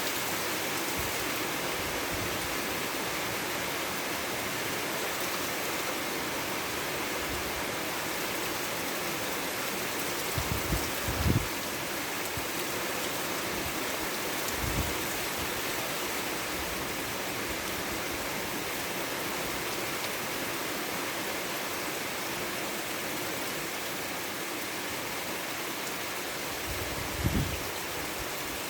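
Steady rainfall, with a few heavier drops landing as low thuds about a third of the way in and again near the end.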